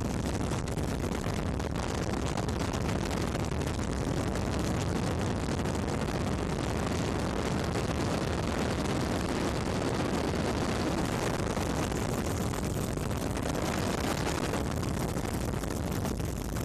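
Steady, unbroken noise of an aircraft in flight, engine and rushing air heard from on board.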